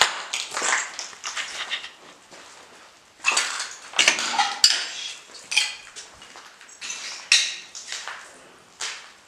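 Footsteps crunching and clattering over debris, heard as a dozen or so irregular crunches and clinks, loudest around the middle.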